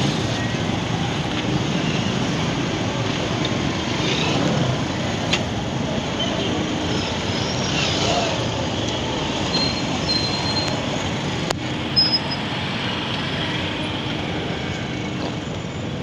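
Steady city traffic noise: vehicles running and passing at a busy roundabout, with a few sharp clicks and a brief knock about twelve seconds in.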